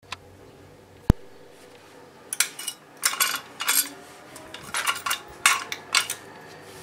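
Metal clinking and rattling of a drill stand being handled, its lever arm and aluminium body knocking, in several short clusters. A single sharp click comes about a second in.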